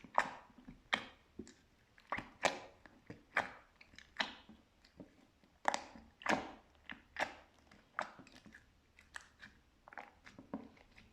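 Yellow slime being squeezed and pressed by hand, giving a series of short, sticky crackling pops at an uneven pace of about one a second.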